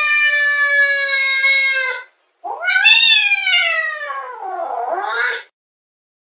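Cat meowing in two long, drawn-out calls. The first is held fairly steady and ends about two seconds in. The second rises, then falls in pitch and wavers near its end.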